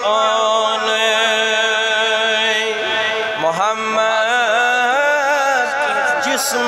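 A man's voice chanting a devotional phrase in a drawn-out, wavering melody with long held notes, breaking briefly about three seconds in.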